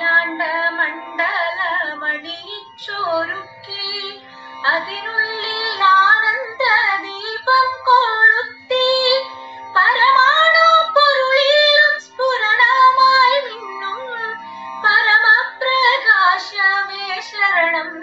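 Carnatic-style music: a high melody with gliding, ornamented notes over a steady held low note.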